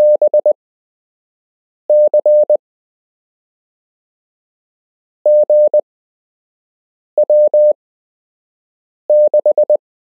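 Morse code practice tone: one steady mid-pitched beep keyed on and off into fast dots and dashes, five characters each sent in about half a second with long silent gaps between them, spelling out random amateur radio call signs for copying by ear.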